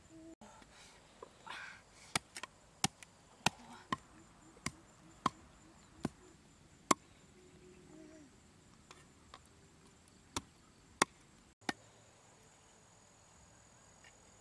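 A cleaver chopping on a wooden block: sharp single chops about one every half to one second, about eight in a row, then a pause and three more.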